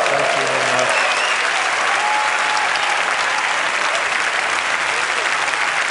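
Large audience applauding steadily, with a few voices calling out in the crowd.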